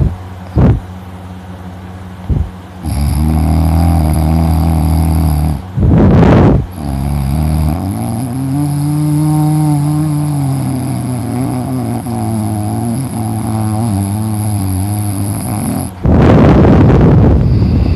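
A man snoring crazy loud in a heavy, exhausted sleep: long, low, droning snores that waver slightly in pitch. They are broken about six seconds in and again near the end by loud, rushing breaths blown close to the microphone.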